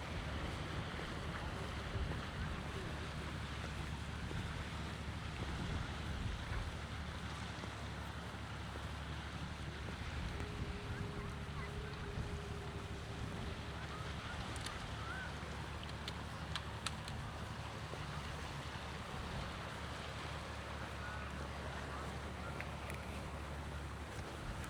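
Seaside outdoor ambience: steady wind noise on the microphone over a low rumble, with the sea in the background.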